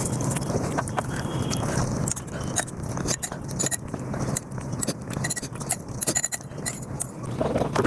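Mukbang eating sounds played back at five times speed: chewing, mouth smacks and scraping of rice and curry run together into a fast, dense clatter of clicks.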